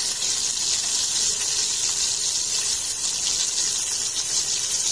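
Two whole tilapia shallow-frying in hot oil in a stainless steel pan, a steady sizzle with fine crackling.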